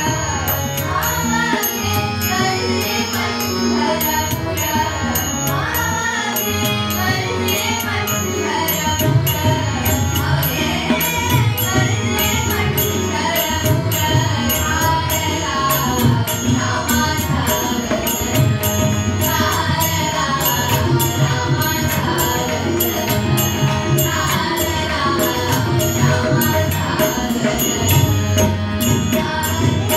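A woman and a girl singing a Konkani Hindu bhajan together, accompanied by a harmonium and tabla keeping a steady beat.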